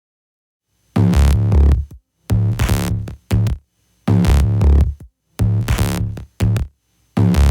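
Electronic background music with a heavy drum-machine beat, starting about a second in and coming in short, chopped phrases with brief gaps between them.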